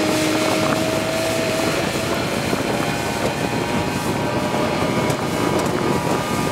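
A small fishing boat's engine running under way, its pitch rising slightly over the first second or so, under a steady rush of wind and water.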